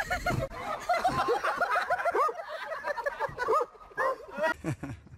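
Several people laughing together in a fast, overlapping run of short, high laughs that thins out near the end.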